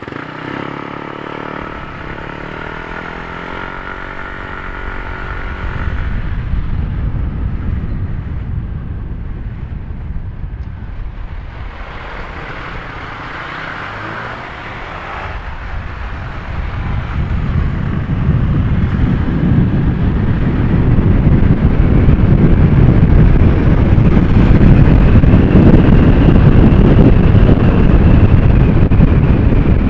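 Honda Click 150i scooter's single-cylinder engine pulling away, its pitch rising slightly over the first few seconds. As speed builds, wind buffeting the microphone grows louder and covers the engine.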